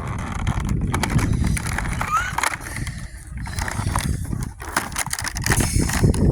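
Cardboard and plastic packaging crackling and tearing as an advent calendar door is pried open and a small toy is unwrapped, with many quick crinkles and clicks over handling rumble.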